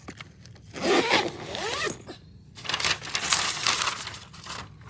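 Suitcase zipper being pulled along its track in two passes, each lasting over a second, with a short pause between them.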